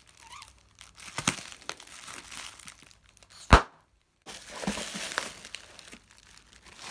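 Plastic bag and bubble wrap crinkling as they are handled and pulled apart, with one sharp snap about halfway through.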